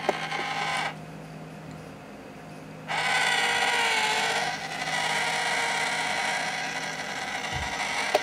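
Small motor of a cat-in-a-box coin bank whirring as its lid lifts and the toy cat peeks out, starting about three seconds in. Before that, a brief scuffle as the cat paws at the box.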